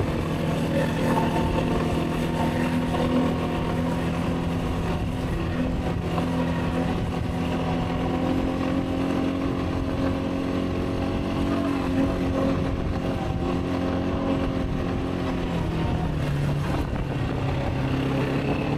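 Quad bike engine running steadily under way, its note holding fairly even with a brief dip in pitch about three-quarters of the way through.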